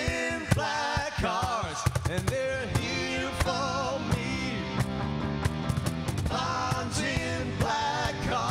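A hard rock band playing live: a lead singer over electric guitars and a steady drum beat.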